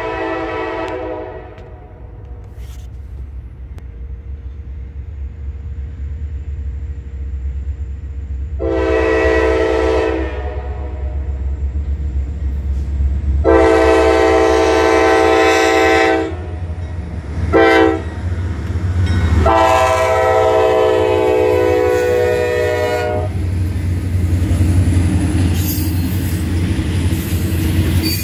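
Norfolk Southern diesel locomotive air horn blowing the long, long, short, long grade-crossing signal, over the steady low rumble of the approaching diesel engines. From about 24 seconds in, the locomotives have passed and the double-stack container cars roll by with rail clatter and a faint high wheel squeal.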